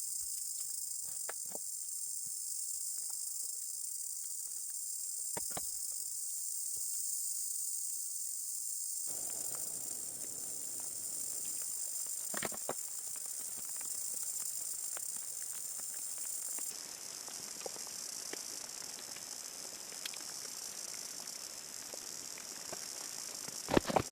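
Rainforest insect chorus, a steady high-pitched buzz, with scattered small clicks and taps. About nine seconds in, a soft hiss joins underneath, and two sharp knocks come just before the end.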